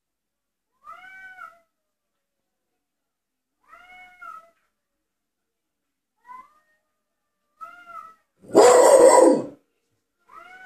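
Two cats yowling at each other in a standoff, heard through a TV's speakers: drawn-out yowls that rise and fall, one every two to three seconds. A little over eight seconds in comes a loud, harsh burst of noise about a second long, the loudest sound, and a new yowl starts near the end.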